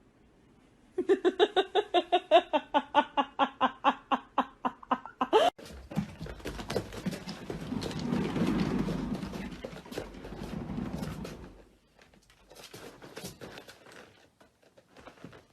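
An animal giving a rapid run of short pitched calls, about four or five a second, for about four seconds, then rustling and handling noise with scattered clicks.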